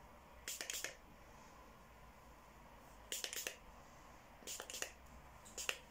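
Faint rustling and clicking close to the microphone, in four short bursts.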